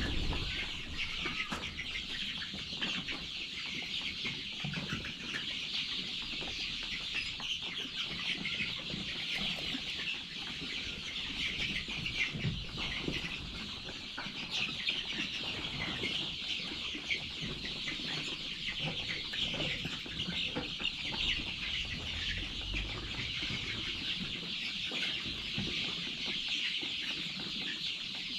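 A large flock of chickens clucking and calling all at once, a steady, dense chatter of many birds.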